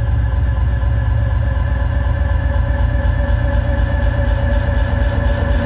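Steady, loud low rumbling drone with a slight pulse, like an idling engine, with a few steady tones held above it.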